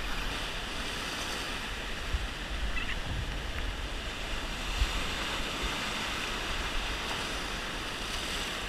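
Heavy surf breaking and washing over rocks, a steady rush of white water, with occasional low thumps of wind on the microphone.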